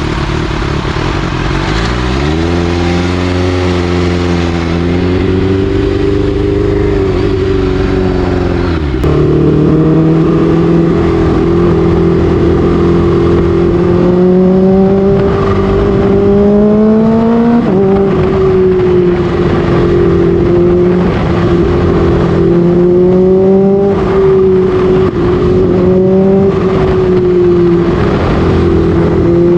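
Kawasaki H2's supercharged inline-four running through an SC Project exhaust while riding. The revs climb about two seconds in, drop at gear changes about nine and eighteen seconds in, then hold fairly steady with small throttle rises.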